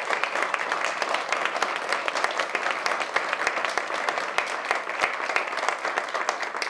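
Audience applauding: many people clapping at once in a room.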